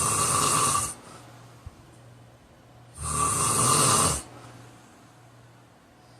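A man snoring in his sleep: two loud snores about three seconds apart, each lasting about a second, with quiet breathing between.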